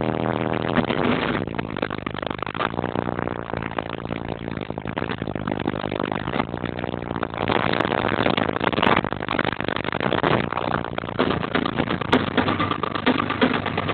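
Very loud playback from a high-power car audio system, heard as a dense, rough rumble without a clear beat.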